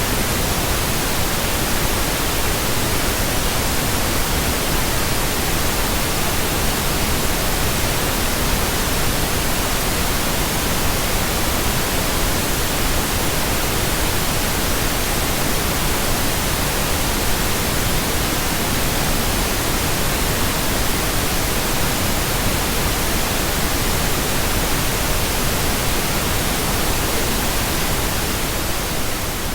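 Steady synthetic pink noise, a constant even hiss across the whole range, beginning to fade out near the end.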